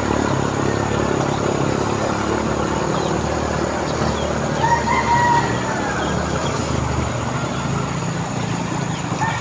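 Steady outdoor background rumble and noise, with one short pitched call rising and falling about five seconds in, like a rooster crowing.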